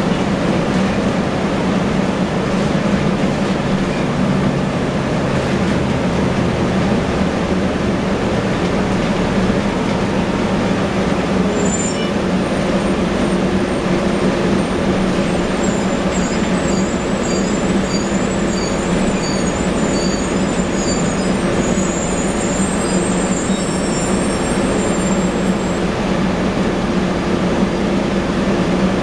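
Cabin noise inside a 1998 Nova Bus RTS city bus: its diesel engine drones steadily under a constant rumble and rattle. A series of faint high-pitched chirps comes through midway.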